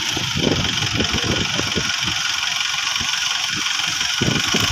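Mahindra Arjun tractor's diesel engine running at idle, a steady low chugging.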